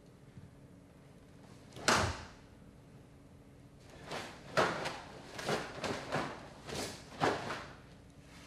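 Karate gi snapping with fast hand techniques during a kata: one sharp snap about two seconds in, then a quick run of about eight snaps in the second half.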